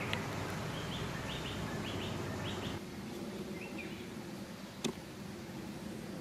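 A small bird chirps a quick run of short high notes over a steady low rumble of background noise, which drops down a little under halfway through. A sharp click comes just after the start and another near the end.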